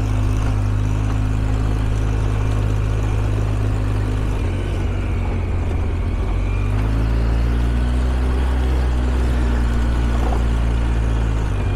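ATV engine running steadily while riding along a trail, its note shifting slightly about halfway through.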